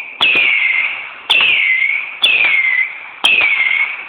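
25-shot firework cake firing four shots about a second apart, each a sharp pop followed by a falling whistle that fades.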